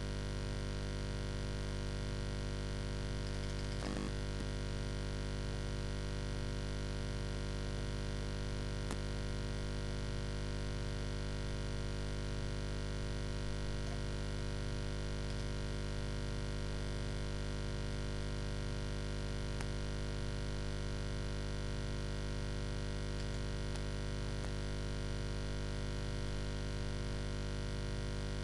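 Steady electrical mains hum with many overtones, unchanging throughout, with a faint click about four seconds in.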